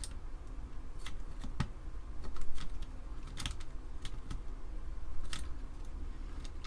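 Scattered plastic clicks and scrapes, roughly one every second, from an Amiga keyboard's spacebar keycap and its wire stabilizer bar being worked into place.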